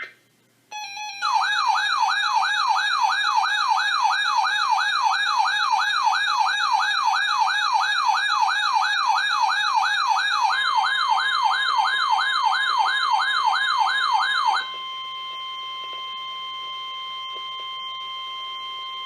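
Weather radio alert tones: a brief burst of data tones, then a fast warbling alarm tone of about three warbles a second. About ten seconds in, the steady single-pitch NOAA Weather Radio warning alarm tone joins it. After the warble stops, that steady tone carries on alone and quieter. Together they herald a severe weather announcement.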